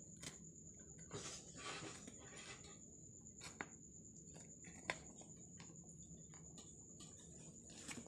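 Parakeets feeding from a plate: faint, irregular clicks and taps of beaks on the food, plate and cage wire, with soft rustling early on. A steady faint high whine runs underneath.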